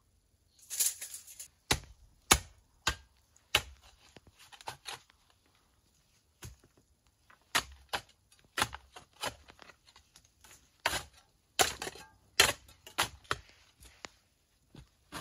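Spade digging into soil: a series of sharp chops and scrapes at irregular intervals, roughly one a second, with a short pause partway through.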